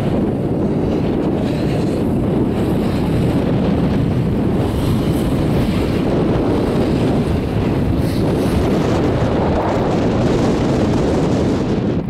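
Strong wind blowing across the microphone on an open chairlift: a loud, steady low rush.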